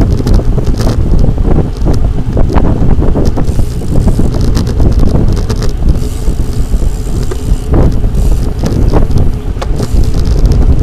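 Heavy wind buffeting the microphone of a camera on a moving road bicycle, a loud steady rumble with frequent short knocks and rattles from the ride.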